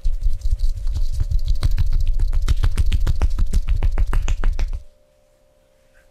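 Rapid percussive hand-tapping massage on the body: a fast, even run of slaps and dull thumps, about seven a second, that stops abruptly about five seconds in.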